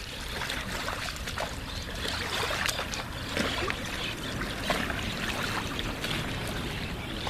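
Lagoon water lapping and splashing, with many small irregular splashes over a steady wash.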